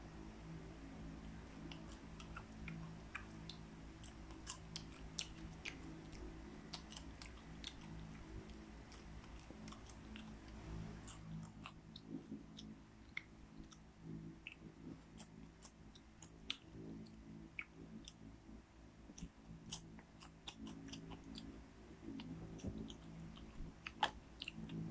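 Popcorn being chewed with the mouth close to the microphone: soft, irregular crunching with many small crackles.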